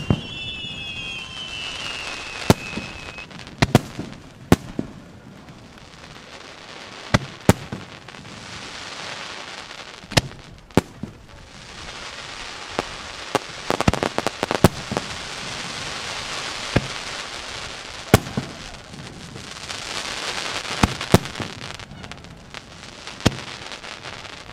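Japanese aerial firework shells bursting overhead: more than a dozen sharp bangs at irregular intervals, some in quick pairs. Between them runs a hiss that swells and fades.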